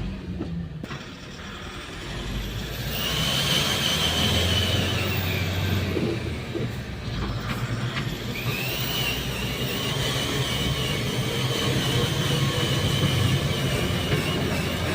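Tata 1416 BS6 truck's turbocharged diesel engine running and held at raised revs twice, with a high turbo whistle coming in and dying away with each rise in revs.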